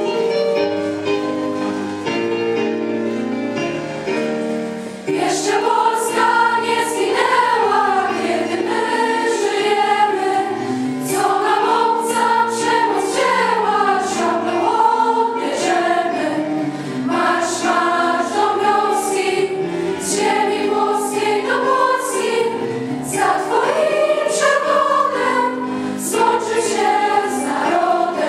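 Schoolchildren singing together as a choir. Their voices come in about five seconds in, after a short instrumental introduction of held notes.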